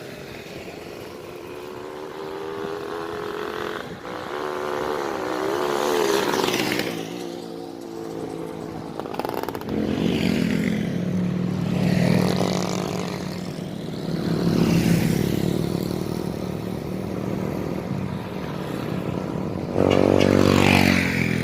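Motorcycles passing one after another, each engine's pitch rising and falling as it goes by. The loudest passes close near the end.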